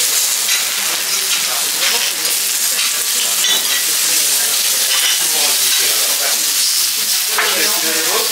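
Wagyu steaks and vegetables sizzling steadily on a hot steel teppanyaki griddle, with short clicks and scrapes of metal spatulas turning the beef.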